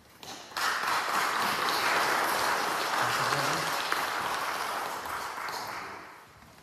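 A congregation applauding. The clapping starts suddenly about half a second in, holds steady, and dies away near the end.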